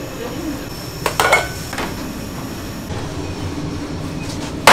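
Bakery kitchen noise: a steady machine hum, with a short clatter of metal pans a little over a second in and another knock soon after.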